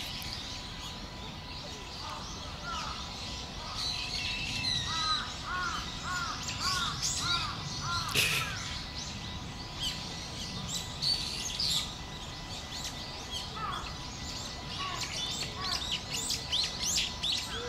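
Wild birds calling and chirping in the trees, several at once, with one bird repeating a short arched note about six times in a row about five seconds in.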